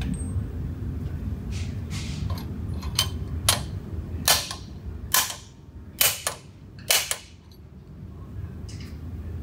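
Hammer blows driving the bearings further into a Mud Buddy mud-motor lower unit housing: about ten sharp metallic strikes at uneven spacing, roughly half a second to a second apart. The mechanic judges from a change in the sound of the blows when the bearing hits bottom.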